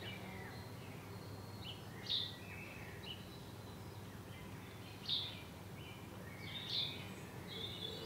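Small garden birds chirping faintly in short high notes and brief phrases, the loudest about two, five and nearly seven seconds in, over a low steady background hum.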